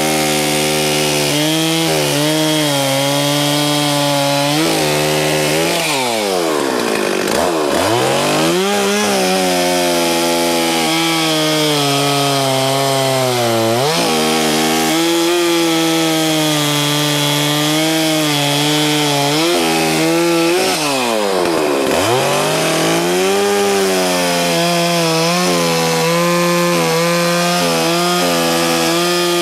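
Two-stroke gas chainsaw running at high revs while bucking firewood rounds, its pitch wobbling as the chain loads in the cut. Twice, about a quarter of the way in and again about three quarters in, the revs drop nearly to idle and climb back up.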